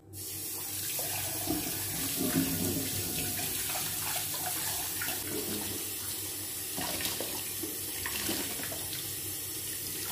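Kitchen tap turned on and running steadily into a stainless steel sink, the stream splashing over leafy greens in a plastic bowl as hands rinse them. A few light splashes and knocks come through.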